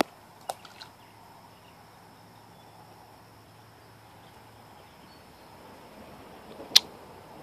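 Steady high-pitched insect chirring outdoors, with a few small clicks in the first second and one sharp, brief crack near the end.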